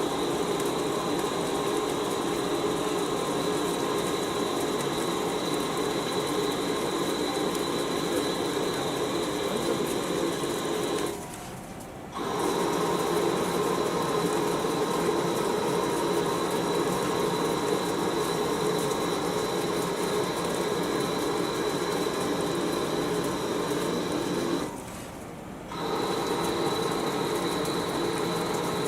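CNC lathe machining a steel shaft: a steady cutting noise over a constant high whine. The cut stops twice for about a second, roughly a third of the way in and again past the middle, then resumes.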